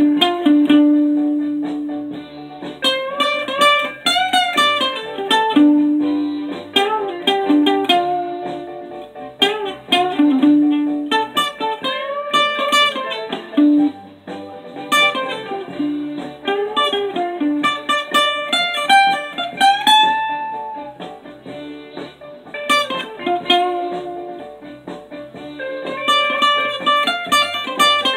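Archtop guitar played solo in a blues style: picked single-note lines and chords, with several notes bent up in pitch and let ring.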